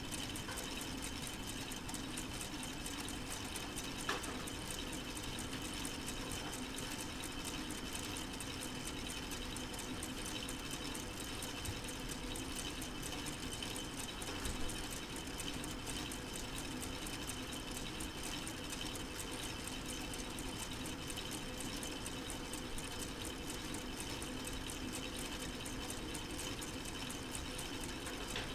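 Solar-powered K'nex four-cylinder model engine running steadily, its plastic gears and linkages turning with a constant mechanical whir. A couple of sharper clicks come about four and fifteen seconds in.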